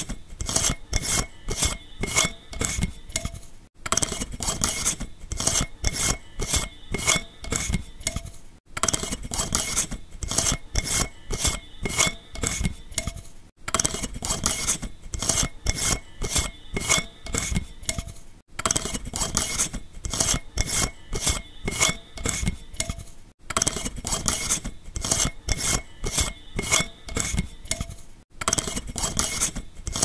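A light bulb being worked out of its socket, with glass and metal rasping and scraping in quick strokes of about three a second. The same five-second stretch repeats over and over with a brief gap between repeats.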